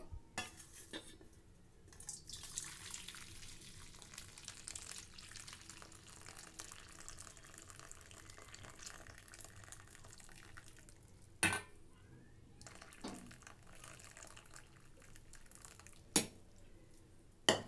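Chicken cooking water being poured from a pressure cooker into a steel bowl: a faint, steady splashing pour that stops about two-thirds of the way through, followed by two sharp knocks.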